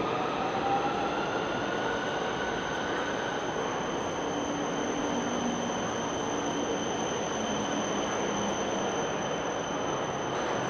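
Tram running on its rails, its wheels squealing in gliding tones for the first few seconds over steady running noise and a thin high whine.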